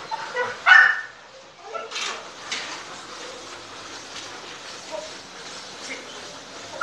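A dog barking: one loud bark about a second in, then a couple of shorter, quieter barks.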